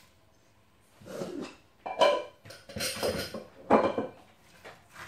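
Wooden spoon stirring pistachios in a stainless steel pot on the hob: about five short stirring strokes, starting about a second in.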